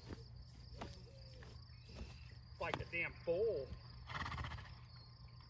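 A horse pawing and scraping at dry ground with a front hoof, testing the spot to see if she can roll, with a short noisy rush about four seconds in. Crickets chirp steadily throughout.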